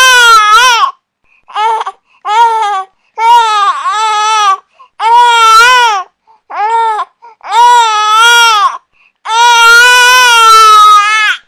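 Infant crying: a run of loud, high-pitched wails, some short and some drawn out, each broken off by a quick breath before the next.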